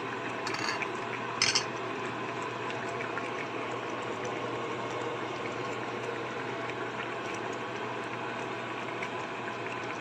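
Steady hiss and low hum of a red electric cooking pot of boiled potatoes, still hot and steaming. Two brief clatters come about half a second and a second and a half in, the second the louder.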